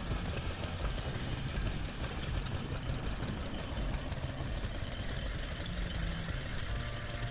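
Vintage stationary engines running, a steady rapid knocking beat of engine firing.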